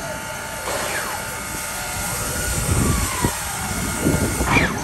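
Clover Valley Lumber Co. No. 4 steam locomotive hissing steam, with louder irregular chuff-like bursts about every second.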